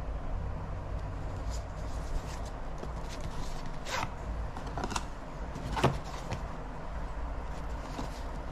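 A low steady rumble with three short sharp clicks, about four, five and six seconds in.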